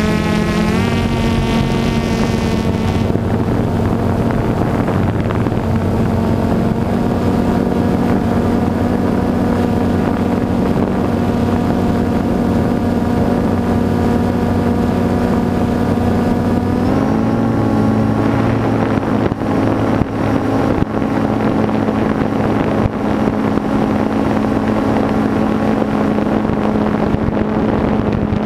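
DJI Phantom 2 quadcopter's electric motors and propellers giving a steady multi-toned whine, heard from the camera on board. The pitch steps up about a second in and again a little past halfway as the drone climbs, with some wind buffeting on the microphone later on.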